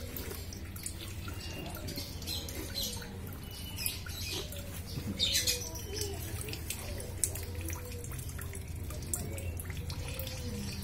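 Kitten lapping from a shallow plastic tray: a run of quick, irregular wet clicks over a steady low hum.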